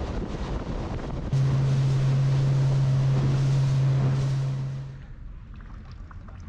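Wind and water rush from a small motor boat under way. About a second in this gives way abruptly to a loud, steady low engine drone heard from inside the wheelhouse at the helm. Near the end the drone cuts off, leaving faint water sounds.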